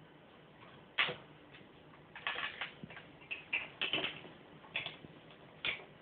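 A cat pawing at a bird feeder: an irregular string of about seven sharp knocks and rattles, the first, about a second in, the loudest.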